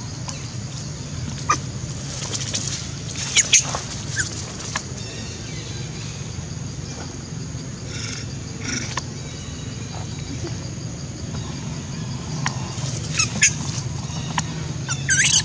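Macaques giving short high-pitched squeals and screeches, scattered through, with the longest and loudest squeal near the end, over a steady low hum.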